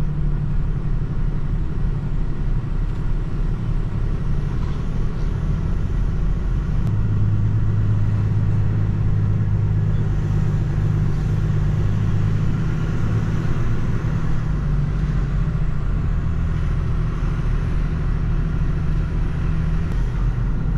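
Lorry's diesel engine running at low road speed, heard from inside the cab as a steady low rumble, its note shifting now and then as the engine speed changes.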